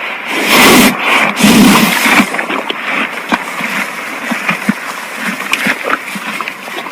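Water splashing and sloshing, with loud splashes in the first two seconds, then quieter sloshing with many small clicks and drips.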